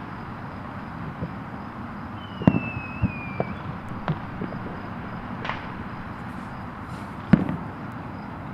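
Fireworks going off: scattered sharp bangs and pops, the loudest about two and a half seconds in and again near the end. A thin whistle slides slightly downward in pitch between them, over a steady background noise.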